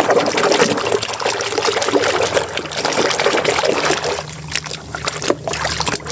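Water splashing and trickling as a muddy toy is scrubbed and rinsed by hand in a basin of clean water, with uneven small splashes and drips.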